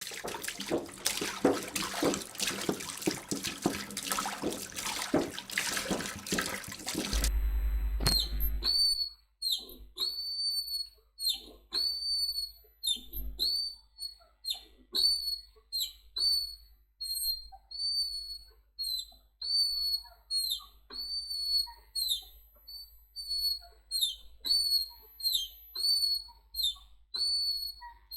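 A seesaw squeaking with each swing: a high, pitched squeak that dips in pitch at its end, repeating about every two-thirds of a second. Before it, for the first seven seconds or so, a loud dense noise with fast rhythmic pulses, which ends in a low thump.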